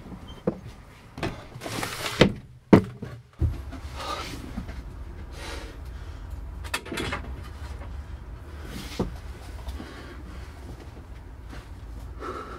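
A series of sharp knocks and thumps, with a short rushing, sliding noise among them, then a steady low hum that starts about three and a half seconds in and carries on under scattered fainter noises.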